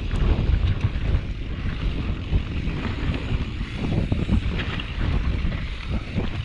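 Wind buffeting the microphone: a continuous, gusting low rumble with a few faint clicks.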